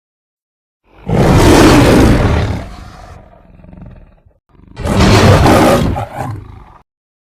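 Custom King Kong roar sound effect: two loud, rough roars, the first about a second in and trailing off into a lower growl, the second starting about halfway through.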